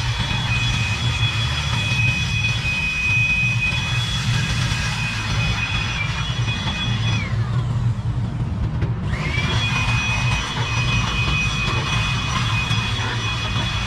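Handheld electric blower running with a steady high whine. About seven seconds in it is let off and its pitch falls away, then it spins back up about two seconds later. A steady low hum runs underneath.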